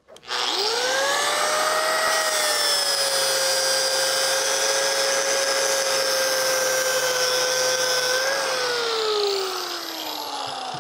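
Corded angle grinder with a Type 27 zirconia-alumina flap disc starting up and spinning up to a steady whine while grinding a steel weld bead smooth. About eight seconds in it is switched off, and the whine falls as the disc spins down.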